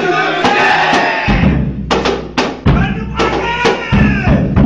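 Music: a voice singing over drums and percussion, with a heavy bass and drum beat coming in about a second in.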